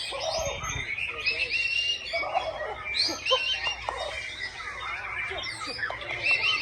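Caged white-rumped shamas (murai batu) singing at once in a contest, their whistled phrases overlapping densely throughout, over the chatter of a crowd.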